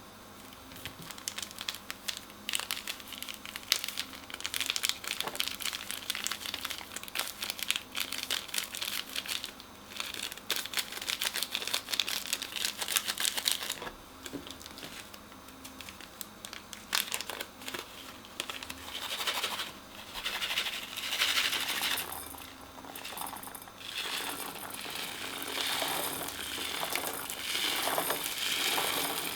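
Crunchy slime being squeezed and mixed by hand, giving a dense run of crackling and crinkling clicks. About halfway through, it eases into slower, crunchier squishes.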